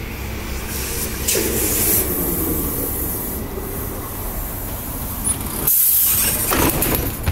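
Trolleybus standing at a stop with its doors open: a steady low rumble with a wavering tone for a couple of seconds, and two bursts of hiss, about a second in and near the end.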